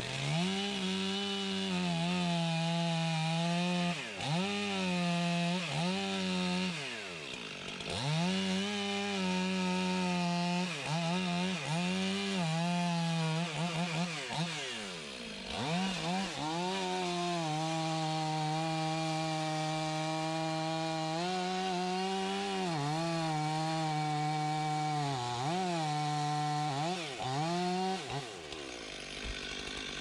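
Chainsaw cutting cherry wood, its engine held at high revs for a few seconds at a time and let down briefly between cuts again and again, settling to idle near the end.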